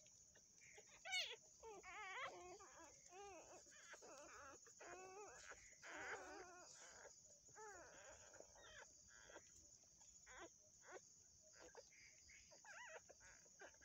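Faint dog whimpers and squeals during whelping: many short, high, wavering cries, thickest in the first half, the sharpest about a second in. A steady high hiss runs behind them.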